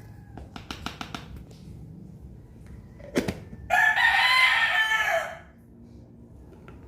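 A rooster crowing once, one long call of about a second and a half a little past halfway through, the loudest sound here. Before it come a quick run of light clicks about half a second in and a single sharp knock.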